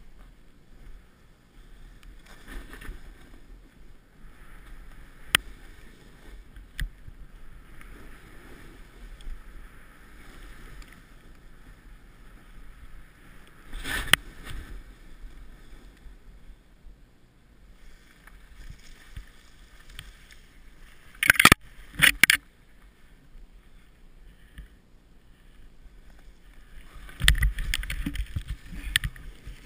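Snowboard sliding and turning through deep powder snow, a steady swishing hiss under the board, broken by a few sharp knocks. Near the end a burst of heavy thumps as the rider falls into the snow.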